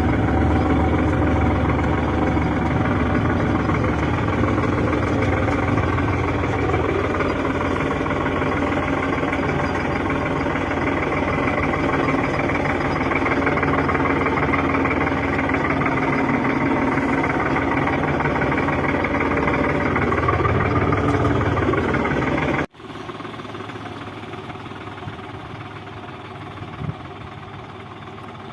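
New Holland 55-56 tractor's diesel engine running steadily under load, pulling a plough through the field. Near the end the sound breaks off abruptly and a quieter engine sound with less deep rumble follows.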